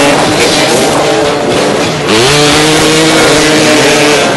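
Several motoball dirt bikes' engines running loud. About two seconds in, one revs up sharply and holds at high revs.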